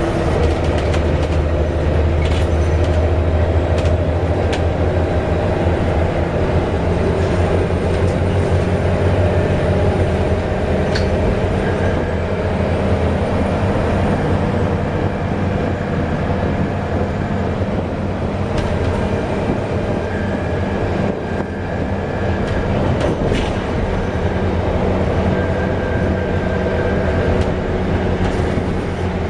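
Cabin sound of a Volvo B7TL double-decker bus under way: its six-cylinder diesel and drivetrain give a steady low drone. Light rattles and a faint high whine run over the drone.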